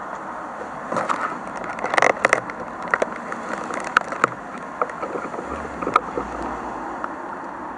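Footsteps crunching and knocking on debris: irregular clicks and knocks, with a cluster about two seconds in, over a steady rushing noise.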